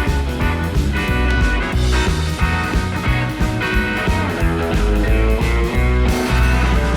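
Background music: guitar-led rock-blues track with a steady beat.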